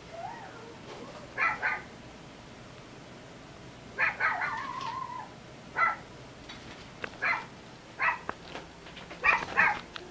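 Short, sharp animal yelps, about ten of them in quick pairs and singles at irregular gaps, with one drawn out into a falling whine about four seconds in.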